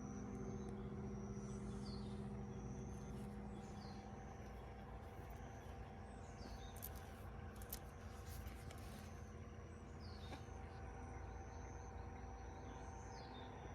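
A bird calling again and again, every two to three seconds: each call is a high held note that drops into a short falling phrase. Under it runs faint rural ambience with a low steady hum, and a few light clicks come about halfway through.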